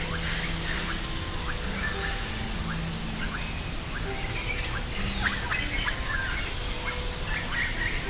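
Many birds calling, with short chirps following one another every fraction of a second over a steady high-pitched whine.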